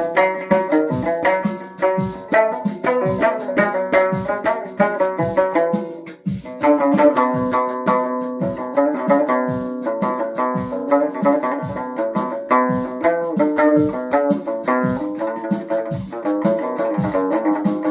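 Plucked string instrument playing a quick run of notes over a steady low beat, with a short break about six seconds in before the playing resumes.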